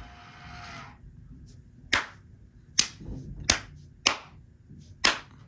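Five sharp knocks at irregular intervals over about three seconds.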